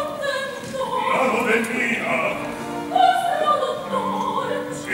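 A male opera singer singing in Italian over an accompaniment.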